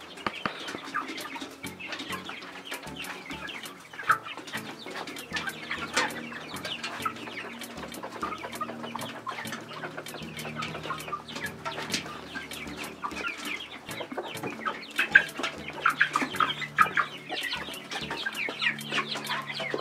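A flock of young chickens peeping and clucking, many short calls overlapping without a break and growing busier near the end.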